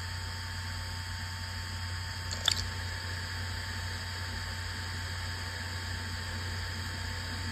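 An HGST/Western Digital Travelstar HTS541010B7E610, a 1 TB 5400 RPM 2.5-inch laptop hard drive in perfect health, spinning steadily: an amplified hum and hiss with faint steady tones. One sharp click about two and a half seconds in.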